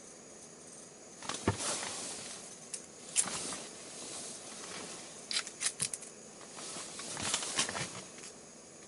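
Crunching crackles and sharp clicks as an ice-fishing rod is handled at the hole's rim of crushed ice, coming in four short clusters with quiet between them.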